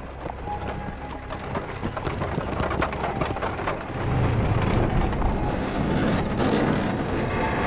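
Horse-drawn carriage rolling through a gateway: wooden wheels and hooves rumbling and clattering, growing louder about four seconds in.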